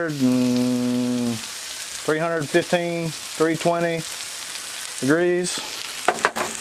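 Catfish pieces shallow-frying in oil on a Blackstone flat-top griddle, a steady sizzle. A man's voice makes drawn-out wordless sounds over it, and a few quick clicks come near the end.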